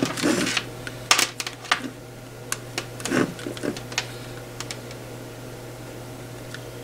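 Handling noise from a pair of cheap wired headphones: a rustle, then a run of sharp plastic clicks and knocks as the headset and its cable are picked up and handled on a wooden tabletop, busiest in the first four seconds and thinning to a few faint ticks. A steady low hum sits under it throughout.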